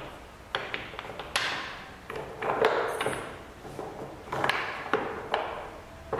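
Small wooden offcut blocks clacking against each other and knocking down onto a wooden workbench as they are picked up, set down and rummaged from a box, in irregular clusters of sharp knocks.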